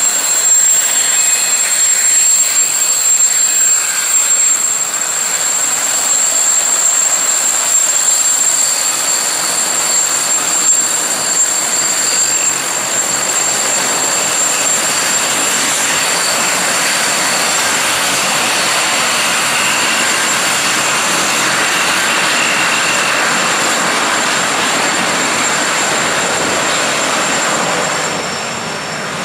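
Breguet Atlantic's twin Rolls-Royce Tyne turboprops running as the aircraft taxis, a steady high-pitched turbine whine over the rush of the propellers. The rush grows fuller about halfway through and eases slightly near the end.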